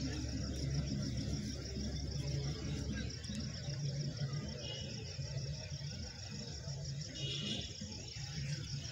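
Faint ambience: a steady low hum under a steady, fast-pulsing high-pitched chirr.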